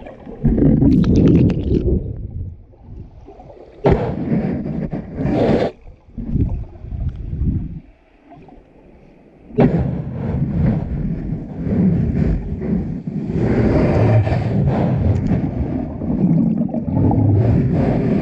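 Shallow seawater heard underwater: muffled churning and rumbling surges of water moving over the sand, with scraping. It comes in irregular bursts, dips about eight seconds in, then starts again suddenly and runs on loud.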